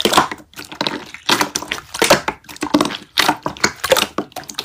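Hands squeezing and stretching a glossy slime: a quick, irregular run of wet squishes and small pops as air pockets burst.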